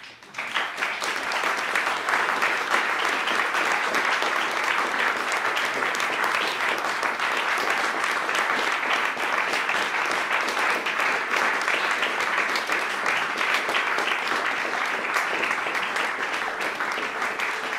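Audience applause at the close of a performance, breaking out suddenly from near silence and then holding steady as a dense, even clapping.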